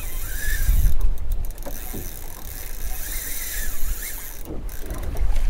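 Spinning reel being wound and working against a hooked fish, with short whines and mechanical clicking, over a steady low rumble.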